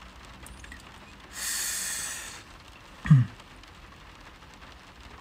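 A man breathing out heavily for about a second, like a sigh. A short falling grunt follows about three seconds in.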